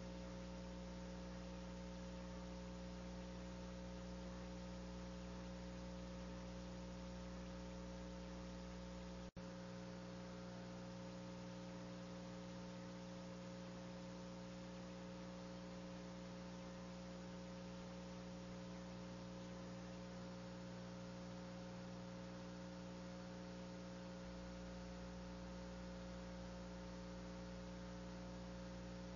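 Faint, steady electrical hum of several fixed tones over a low hiss on the audio line. It drops out for an instant about nine seconds in, and its deepest part is weaker from then until about twenty-four seconds in.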